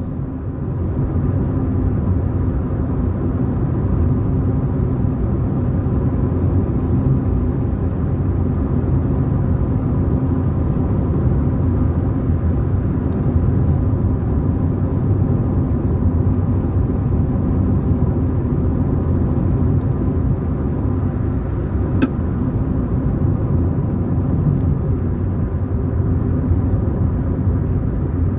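A car driving along a road: a steady low rumble of engine and tyre noise. A single sharp click is heard about three-quarters of the way through.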